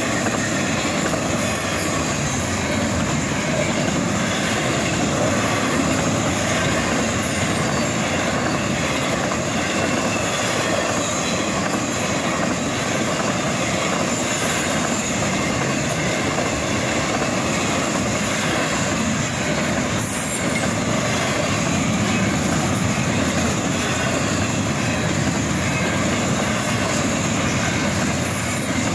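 Intermodal freight cars, flatcars carrying highway trailers and double-stack container cars, rolling steadily past: a continuous, even rumble of steel wheels on rail.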